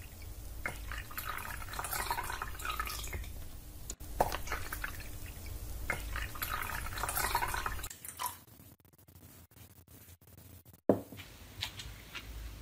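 Liquid degreaser pouring and splashing from a plastic bottle into a plastic tub of water, in two spells of about four seconds each. Then it goes quieter, with a few clicks and one knock near the end.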